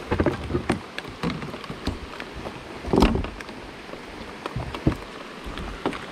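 Rain falling, with drops ticking irregularly on the plastic cover over the camera and a heavier knock about three seconds in.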